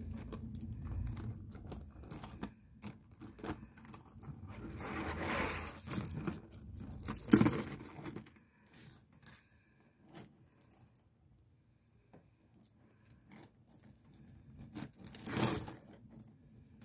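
Beads on a beaded bag clicking and rattling against one another as a hand squeezes and handles it, in short rustling bursts. The loudest clatter comes about seven seconds in and another near the end, with a low handling rumble in the first half.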